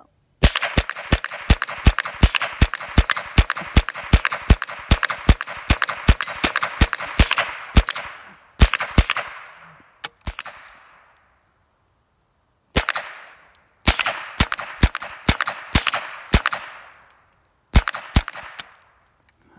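Gunshots in quick succession, about four a second for some eight seconds, then a few single shots. After a pause of about two seconds comes another rapid string and a last couple of shots, each string trailing off in echo.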